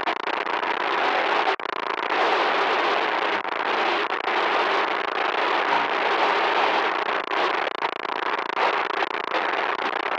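Loud, harsh static noise: a dense crackling hiss with one brief dropout about one and a half seconds in.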